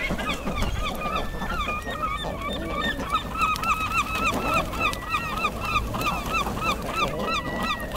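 A flock of common eiders calling, a steady chatter of short rising-and-falling honking notes repeated several times a second.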